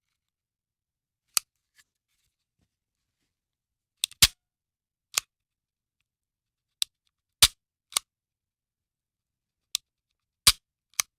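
Handgun dry firing: about ten sharp, separate mechanical clicks of the action and trigger on an empty gun, irregularly spaced with a few in quick pairs and silence between them.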